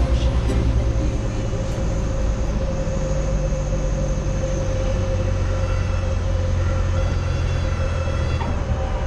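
Small airplane's engine droning steadily, a constant low hum with a steady mid-pitched tone over it.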